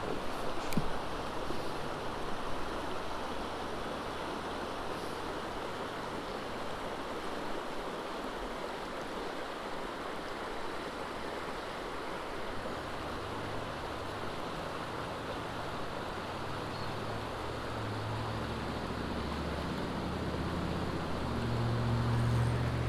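Small stream's water running over rocks in a steady rush, with a low rumble building in over the last few seconds.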